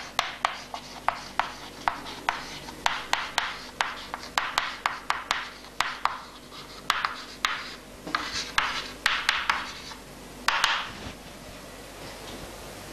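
Chalk writing on a chalkboard: quick taps and short scratches as the letters go on, with a few longer scrapes about eight and ten seconds in, falling quiet near the end.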